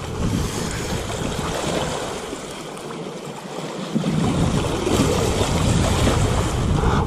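Strong wind buffeting the microphone over waves splashing and washing against shoreline boulders. The wind rumble eases for a couple of seconds midway, then gusts up again.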